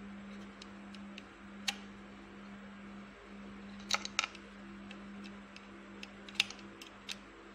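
Scattered sharp metallic clicks and taps of a hand tool on an overlock (serger) machine as a small screw is tightened, with a quick cluster of several clicks about four seconds in. A steady low hum runs underneath.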